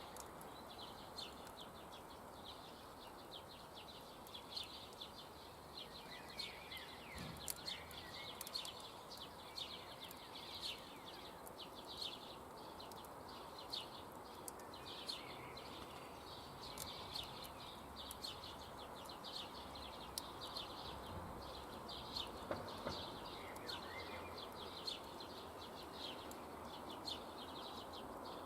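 Birds calling now and then over a steady outdoor hiss, with frequent small sharp crackles and ticks throughout that fit a wood campfire burning.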